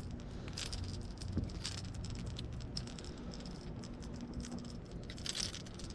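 Fishing lure and its hooks rattling and clicking irregularly as a small hooked fish shakes, with a few louder jangles about a second in and near the end.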